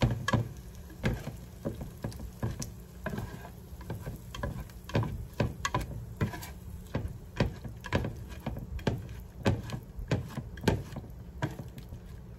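Slotted spatula scraping and tapping against a square ceramic-coated nonstick pan as eggs are scrambled in it, in irregular strokes about once or twice a second. Underneath, a faint sizzle from the eggs, the pan having been cooled by the cold eggs.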